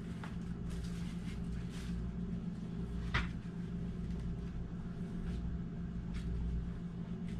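Y-strap being fitted around a patient's head: soft handling rustles and one short click about three seconds in, over a steady low hum.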